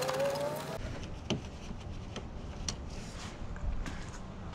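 A brief rising squeak with a hiss in the first second, then scattered light clicks and taps of hand tools and loosened fasteners being handled.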